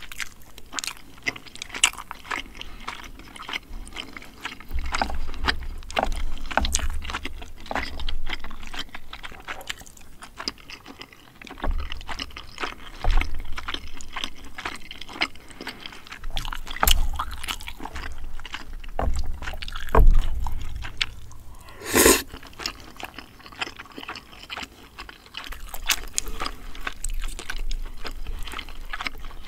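Close-miked chewing and mouth sounds of someone eating spicy braised chicken and rice, with frequent small clicks and taps of wooden chopsticks against plastic takeout containers. One short, louder noise about two-thirds of the way through.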